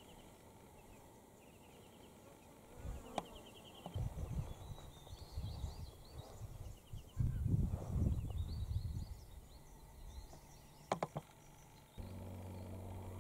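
Outdoor bush ambience: short, high, rapid trills and chirps recurring every second or two, over irregular low rumbling that is loudest in the middle. A steady low hum starts near the end.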